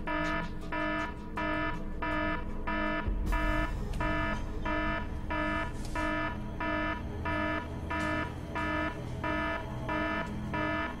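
Electronic alarm beeping steadily, about two pulsed tones a second: an intruder alert. A low rumble joins it about three seconds in.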